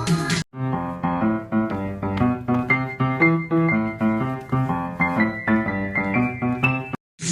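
Piano or keyboard music with quick notes struck one after another, cut off abruptly near the end. At the very start a different, busier song plays for a moment before a brief silence.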